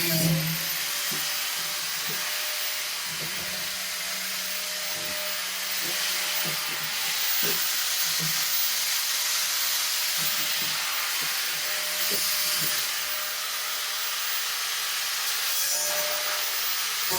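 Steady, harsh hissing noise from metalworking on the steel hat channel, with a few faint knocks scattered through it.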